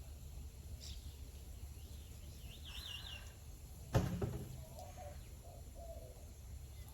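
Outdoor ambience with a steady low rumble, a short warbling bird call a little before the middle, and a single sharp knock about four seconds in, followed by a few faint short chirps.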